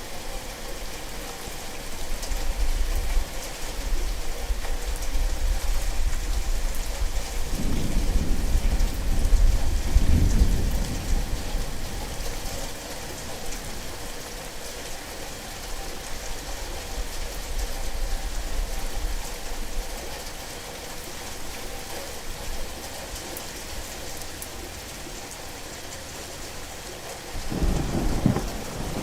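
Steady heavy rain with rolling thunder. One long low rumble builds about eight seconds in and fades out a few seconds later, and another begins near the end.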